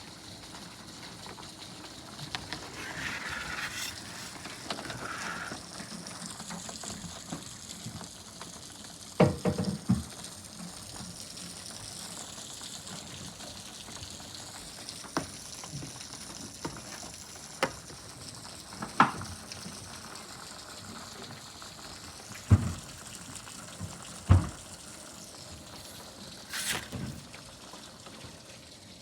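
Spring rain falling with a steady hiss, and heavier drops knocking sharply on a hard surface every few seconds at irregular intervals.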